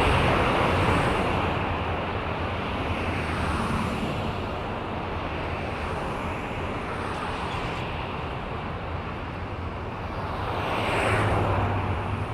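Road traffic ambience: a steady rumble of vehicles on a roadway, with a louder vehicle passing by near the end.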